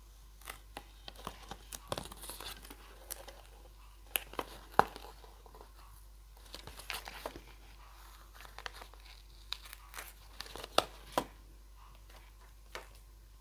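Washi tape being peeled slowly off white card stock: irregular small papery crackles and ticks, with a few louder snaps.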